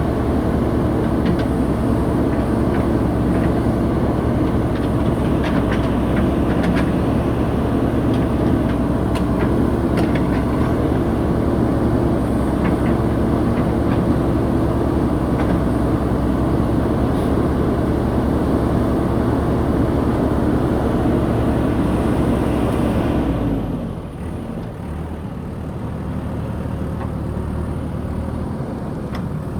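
JCB 3DX backhoe loader's diesel engine running steadily under load, with scattered knocks. About three-quarters of the way through, the engine drops to a lower, quieter note.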